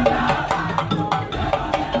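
Live percussion-led music: drums and short, bright struck pitched notes in a quick, busy, steady rhythm.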